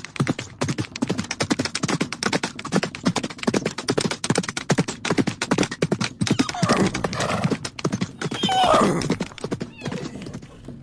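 Horse hooves beating in a rapid, dense clatter, then a horse neighing with a long, wavering call about two-thirds of the way in.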